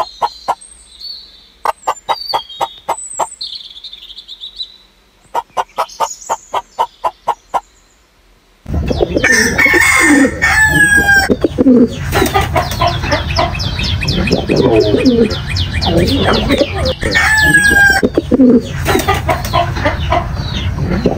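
For the first eight or nine seconds, runs of rapid, evenly spaced pulses, about five a second, with faint high bird chirps between them. Then, suddenly louder, a flock of chickens clucking, with a rooster crowing twice, each crow a long falling call.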